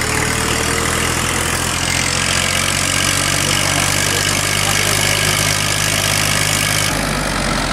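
A farm tractor's engine running steadily as the tractor pulls on a taut chain; the sound shifts about seven seconds in.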